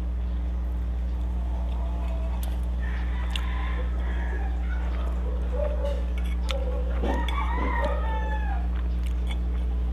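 A rooster crows in the background, with long, bending calls near the middle and again later. Spoon and fork clink sharply a few times against a ceramic plate over a steady low hum.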